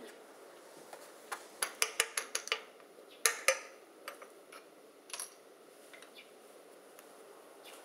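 Claw hammer striking and prying at a small metal valve-box lid set in the pavement: a quick run of sharp metal clinks, then two louder strikes, then a few scattered clinks as the lid comes open.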